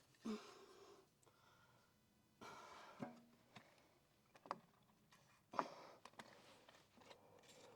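Faint aerosol penetrating spray hissing in a couple of short bursts, with a few light clicks and knocks between them.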